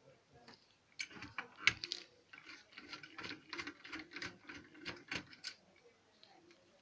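Screwdriver working screws out of an HP LaserJet P1108 printer's internal frame: a run of small, irregular clicks and scrapes lasting about four seconds, dying away near the end.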